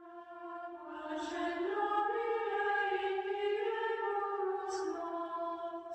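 Closing music: voices singing a slow, held choral chord that swells in, holds and fades away near the end.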